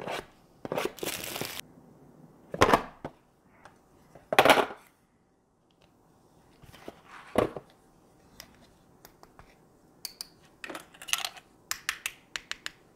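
Packaging of a UniFi G4 Bullet security camera being opened by hand: scattered rustles and scrapes, a longer rustle about a second in, and a run of small clicks and taps near the end.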